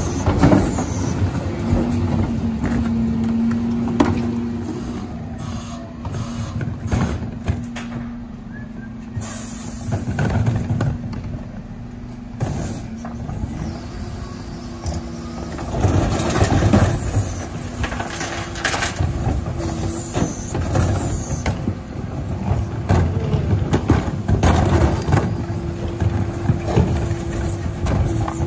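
Dennis Elite 6 refuse truck running while its Terberg OmniDel rear bin lifts tip wheelie bins. A steady mechanical hum sits under repeated knocks and clatters of plastic bins against the lift.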